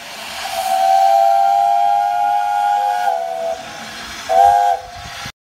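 Steam whistle sounding several notes together over a hiss of steam. It gives one long blast that sags slightly in pitch as it ends, then a short second blast, and cuts off suddenly.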